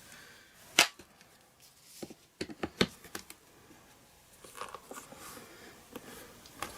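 One sharp click about a second in, then a few softer clicks and light taps: small plastic stamping tools being handled while a photopolymer stamp on a Stamparatus is inked on an ink pad.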